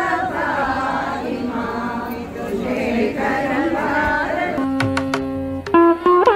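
Devotional chanting by a group of voices in unison. About four and a half seconds in it gives way to Indian classical instrumental music: plucked string notes with tabla.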